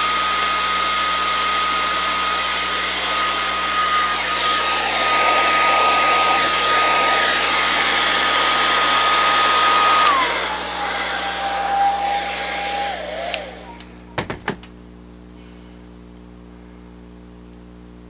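Handheld hair dryer running: a steady rush of air with a high motor whine. About ten seconds in the whine drops to a lower pitch. A few seconds later the dryer is switched off and the sound stops, followed by a few quick clicks.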